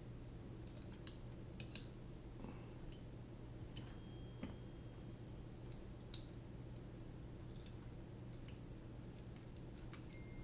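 Scattered light clicks and taps of carbon-fibre frame plates and arms knocking together as an arm is fitted into a drone racing frame, over a steady low electrical hum.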